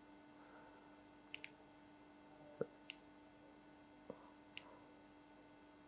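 Faint computer mouse clicks, about six short ticks in three pairs, over a low steady electrical hum.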